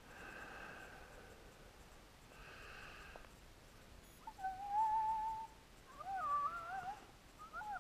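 A predator call sounding animal-like cries to lure coyotes: a faint, steady whine at first, then about four seconds in a loud held cry, followed by two short wavering cries that bend up and down in pitch.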